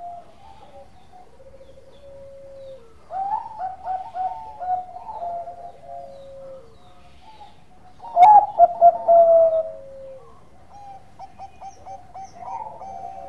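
Zebra dove (perkutut) cooing in repeated phrases of quick, stuttering notes, four phrases in all, the loudest starting about three and eight seconds in. A sharp click opens the phrase at about eight seconds.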